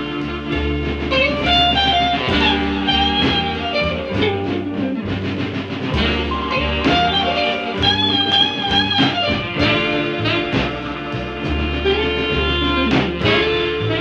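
Guitar-led blues-style background music with a steady beat and a wavering melody line.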